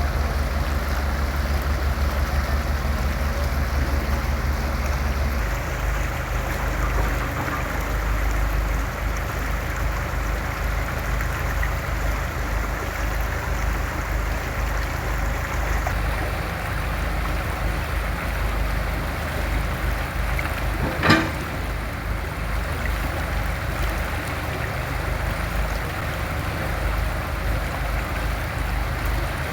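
Excavator's diesel engine running steadily, its note changing about five seconds in, with one sharp knock about twenty seconds in.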